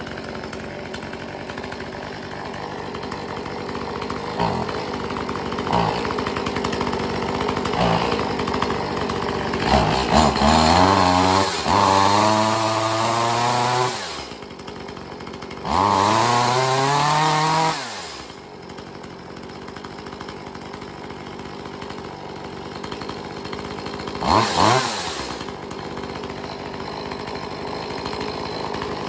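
Echo CS-2511T top-handle chainsaw's two-stroke engine idling and being revved: several short blips, two longer revs to high speed held for a few seconds each around the middle, and a quick blip near the end. A brand-new saw on its first run from an extremely cold start, just taken off choke and being broken in.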